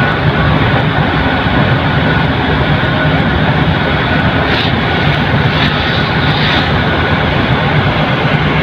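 Steady, loud engine drone with a low hum under a rushing noise.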